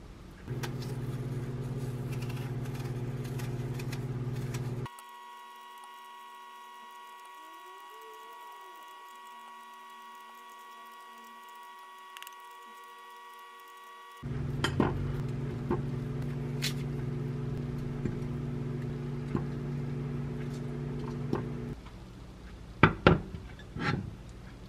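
Microwave oven running with a steady electrical hum, in two stretches with a quieter gap of thin steady high tones between them. A few sharp clacks and knocks come near the end.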